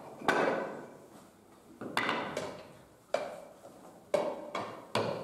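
Hammer striking a chisel into a wooden board, carving out a wooden trough: five sharp separate knocks about a second apart, each dying away briefly.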